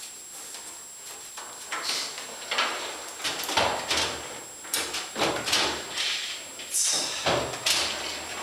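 Steel drawers of a Lista drawer cabinet sliding in and out on their runners, a quick series of slides and knocks between about two and eight seconds in.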